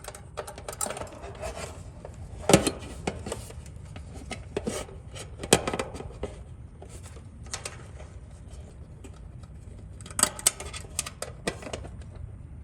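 Scattered metallic clicks and clinks of hand tools and parts as a new run capacitor is fitted into a heat pump's control panel, with a few sharper knocks about two and a half, five and a half and ten seconds in.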